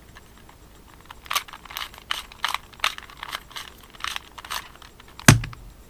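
Plastic puzzle cube being twisted by hand: a run of quick, irregular rasping clicks as its layers are turned. Near the end comes one sharp knock with a low thud.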